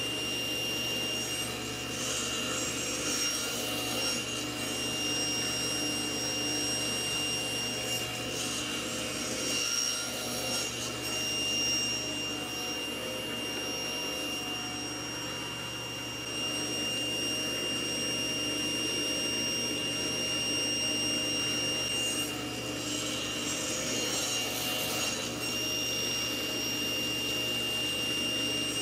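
Table saw running with its blade set just barely above the table, making shallow shoulder cuts around a small square wooden blank pushed across it on a crosscut sled. A steady whine throughout, with the cutting noise coming and going over several passes.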